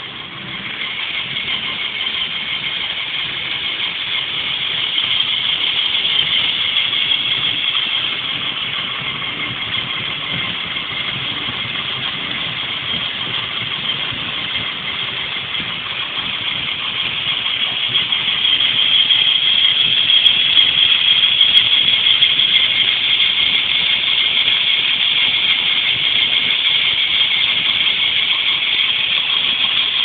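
LEGO Power Functions electric motors driving a hubless wheel through plastic Technic gears, a steady high whirring that grows louder past the middle.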